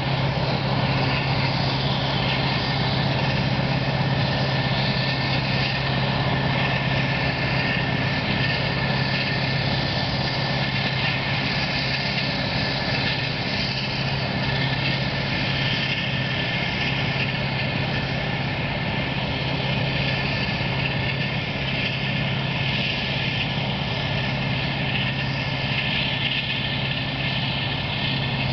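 Claas Jaguar 900 forage harvester chopping maize with a tractor and trailer running alongside: a steady heavy engine drone with a steady high whine over it, getting slightly fainter in the second half.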